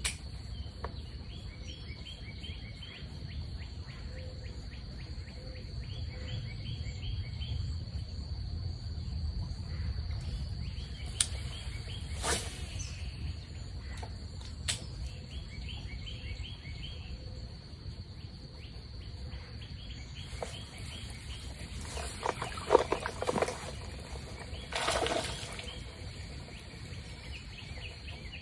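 Riverbank ambience: a steady low outdoor rumble, with birds chirping in short repeated trills every few seconds. A few sharp clicks come about halfway through, and a couple of louder noisy bursts near the end.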